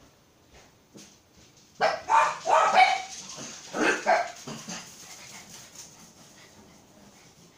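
A dog barking: a quick run of several barks about two seconds in, then another couple of barks about four seconds in.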